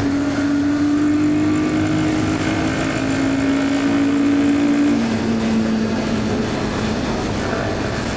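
Royal Enfield Guerrilla 450's single-cylinder engine running on the highway over steady wind and road noise; its note falls slowly, drops a step about five seconds in and fades out soon after, as the bike eases off.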